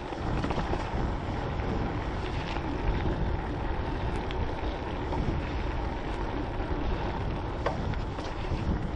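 Mountain bike riding a dirt trail: a steady rush of wind buffeting the action camera's microphone, mixed with tyre and bike noise, and a few sharp ticks and rattles.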